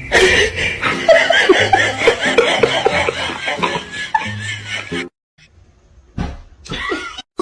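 A person laughing hard in a quick run of bursts, over a low steady tone. It cuts off suddenly about five seconds in, and there is one short sound near the end.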